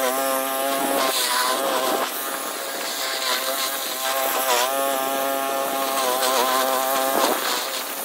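Small gas engine of a walk-behind lawn mower running while cutting tall grass, its pitch sagging briefly and recovering several times as it takes the load.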